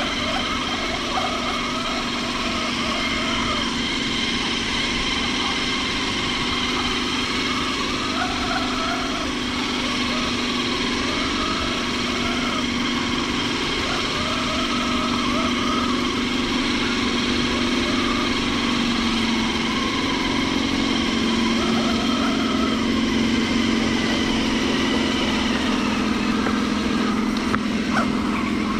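Electric motor and drivetrain of a radio-controlled scale crawler truck whining steadily as it drives, the pitch rising a little and getting louder about two-thirds of the way through.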